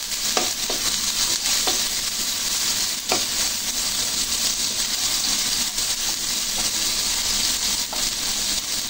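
Sliced onions sizzling in hot oil in a wok while being sautéed, stirred with a wooden spatula that knocks against the pan a few times.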